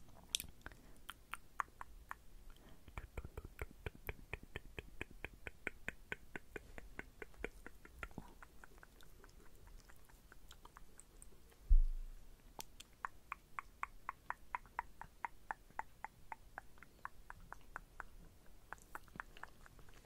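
Felt-tip makeup pen tapping quickly and evenly against the skin of the cheek while dotting on freckles, about four to five soft ticks a second in two long runs with a pause between. A single low thump about twelve seconds in.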